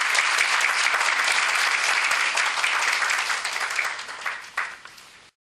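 Audience applauding: dense, steady clapping that thins to a few last separate claps near the end, then cuts off suddenly.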